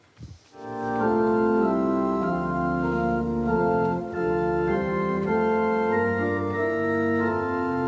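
Church organ playing a slow hymn in sustained chords, starting about half a second in.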